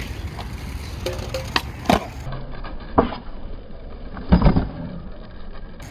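Skateboard wheels rolling over concrete with a few sharp clacks, then a heavy thud and clatter about four and a half seconds in as the board and skater come down from a missed backside 180 kickflip attempt.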